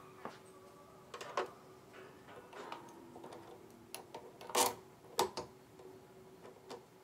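Plastic clicks and taps of a Cricut cutting machine's accessory clamp being opened and a scoring stylus fitted into it. A scattering of sharp clicks, the loudest about four and a half seconds in, over a faint steady hum.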